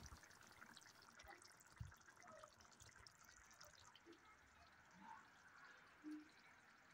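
Near silence: faint background hiss with a soft low thump about two seconds in.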